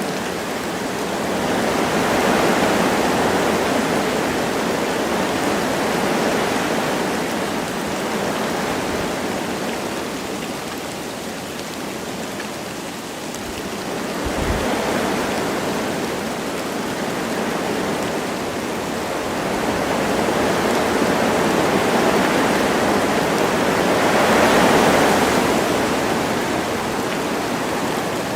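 Wind rushing through forest trees with light rain, a steady hiss that swells and eases in slow gusts every few seconds.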